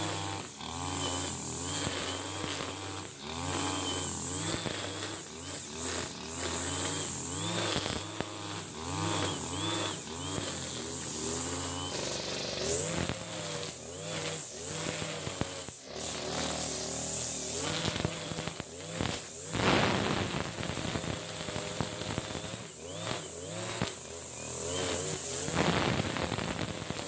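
Backpack brush cutter's small engine running and revving up and down over and over as the spinning head cuts grass, with rougher, louder stretches of cutting twice in the second half.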